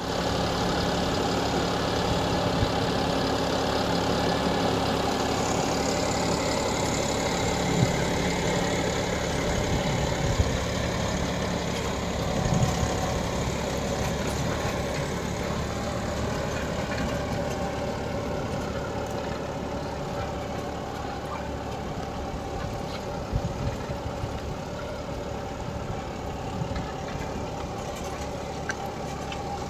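John Deere 5075E tractor's CRDi diesel engine running steadily under load while pulling a three-furrow mouldboard plough through dry soil, with a few sharp knocks. It grows gradually fainter as the tractor moves away.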